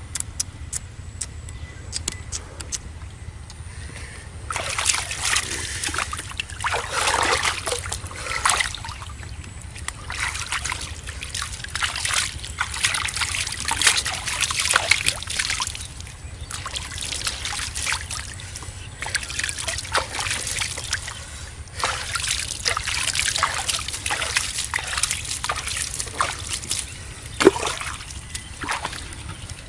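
Shallow water splashing and sloshing in repeated bursts of a few seconds each, over a steady low rumble, with one sharper splash near the end.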